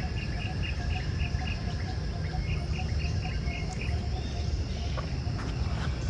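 A bird calling in runs of short, quick chirps, about five a second, breaking off after about a second and a half and starting again for another second. Under it, a steady high insect drone and a constant low rumble.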